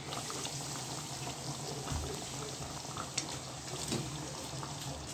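Pot of tamarind fish curry boiling on the stove, a steady bubbling hiss with a few faint clicks.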